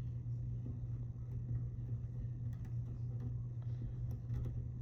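Steady low electrical hum from the workbench, with a few faint light clicks of small parts and tools being handled.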